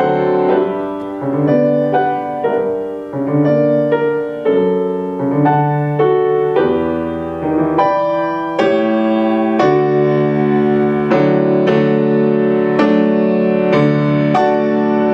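Schimmel grand piano played solo, a tango: melody notes and chords struck in quick succession, each ringing on into the next.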